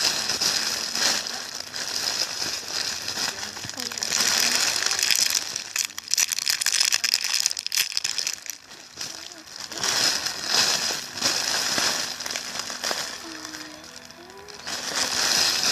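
Plastic crinkling and rustling in several long bursts, as from handling toys in plastic.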